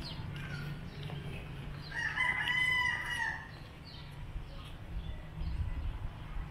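A rooster crowing once, about two seconds in, over a low steady rumble.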